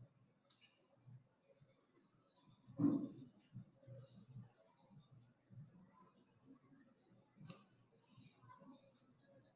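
Faint scratching of a felt-tip marker being rubbed back and forth on paper, colouring in with the side of the tip. Two sharp clicks fall about half a second in and near the end, and a brief soft thump comes about three seconds in.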